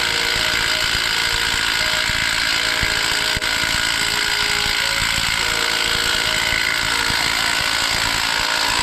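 A hammering power tool runs steadily and loudly, with a fast rattling hammer under a wavering motor whine, as it works on the harmonic balancer bolts of a 2005–09 Mustang V6.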